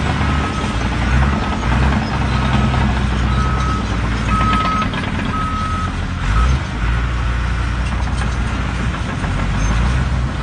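A heavy vehicle's reversing alarm beeps about once a second over the low, steady rumble of its engine. The beeps grow louder toward the middle and then fade a little.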